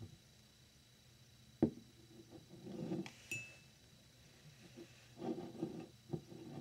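Thick glass beer mug handled on a wooden desk. It knocks down sharply on the wood about a second and a half in. Around three seconds in comes a light glass clink that rings briefly, with soft sliding and rubbing sounds and another knock near the end.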